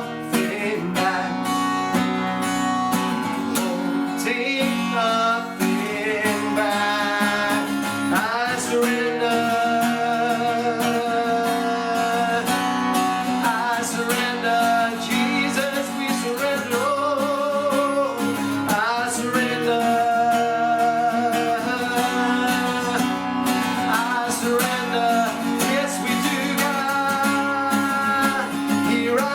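Worship music: acoustic guitar playing chords under a sustained, wavering melody line, continuing without a break.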